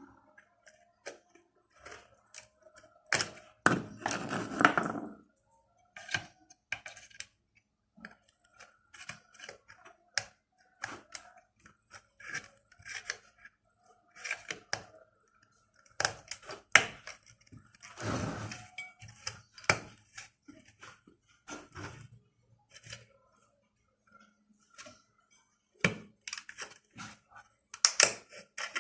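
Small tools clicking and tapping on a TV circuit board during desoldering work, as capacitors are removed and a chip is pried up, with a couple of brief scraping noises about four seconds in and again past the halfway point.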